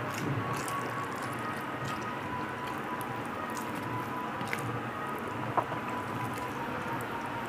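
A person eating rice by hand: mouth-full chewing and wet squishing as fingers knead rice with mashed duck egg on a steel plate. One sharp click about five and a half seconds in.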